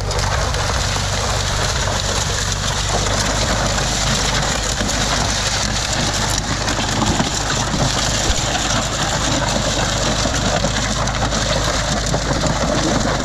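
Steel Ford Ranger hood, used as a sled under a big-block engine, dragging and scraping over a dirt and gravel track as it is towed: a steady gritty hiss, with the tow vehicle's engine running low beneath it.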